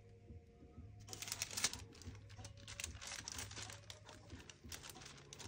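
Rapid, irregular crackling and rubbing as hands handle and dab the wet surface of a silicone baby doll, starting about a second in.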